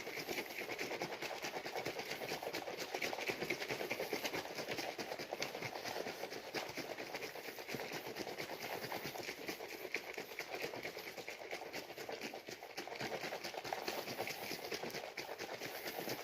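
A shaker cup of G Fuel powder and cold water being shaken hard and continuously, a steady rapid sloshing and clattering as the powder is mixed in. The cup is missing its little metal mixing bit.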